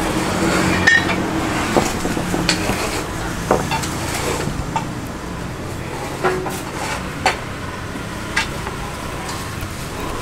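Metal bench scraper knocking and scraping on a wooden table as a slab of crumbly peanut candy is pressed flat and squared off: irregular sharp taps, roughly one every second, over steady background noise.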